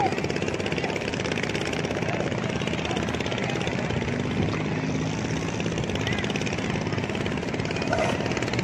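Motorboats' long-tail outboard engines running on the river, a steady engine drone, with a lower engine note joining about halfway through.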